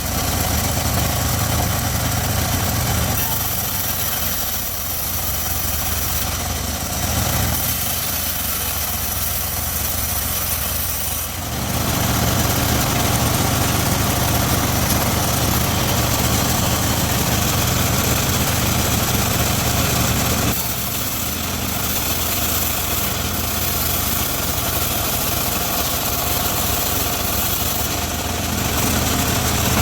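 Engine-driven homemade circular sawmill running steadily as it rips teak. About a third of the way in it gets louder and harsher for roughly nine seconds, then settles back to a steady hum.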